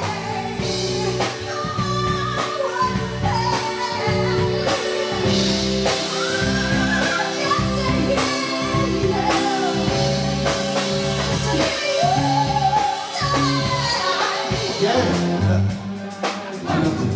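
Woman singing lead vocals with a live band: drum kit, keyboard and electric guitars. The bass line and drum beat keep going under the wandering sung melody.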